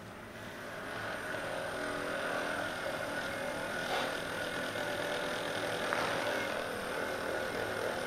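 Hypervolt percussion massage gun running with a steady motor hum, pressed into a person's lower back muscles; it grows louder over about the first second and then holds steady.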